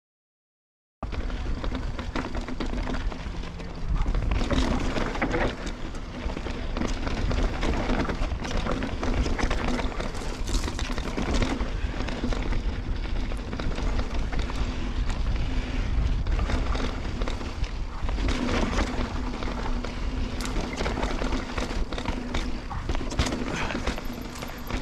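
Wind buffeting the camera microphone on a mountain-bike ride, with a steady hum and irregular knocks and rattles from the Santa Cruz Bronson running over rough trail. The sound cuts in suddenly about a second in, after silence.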